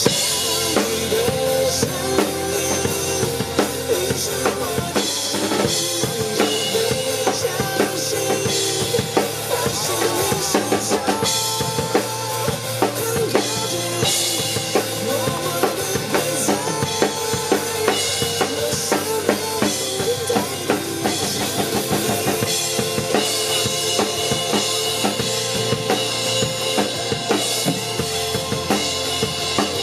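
Acoustic drum kit played live over a recorded pop backing track without vocals: bass drum, snare and cymbals keep a steady beat under keyboard and instrumental melody lines. The drums and track come in louder suddenly at the start.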